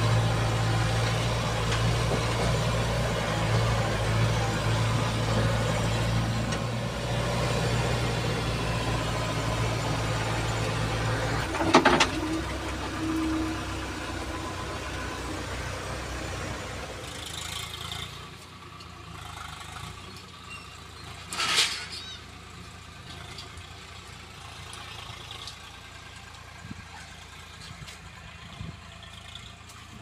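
JCB 3DX backhoe loader's diesel engine running steadily, heard from inside the cab as the machine drives. About twelve seconds in a sharp knock comes and the engine note drops; the sound turns much quieter from about eighteen seconds, with one more knock a few seconds later.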